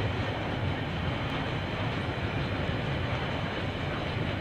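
KiwiRail freight train's container wagons rolling past, a steady low rumble of wheels on the rails.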